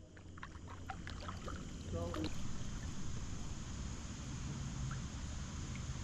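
A kayak being paddled on a river: faint paddle splashes and drips in the first couple of seconds, over a steady low rumble of wind on the microphone.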